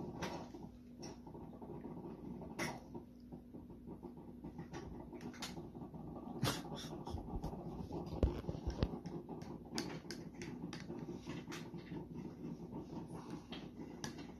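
A plastic spoon clicking and tapping against a plastic yogurt cup and a high-chair tray: many short, sharp taps scattered throughout, with a few heavier knocks on the tray between about 7 and 9 seconds in, over a steady low hum.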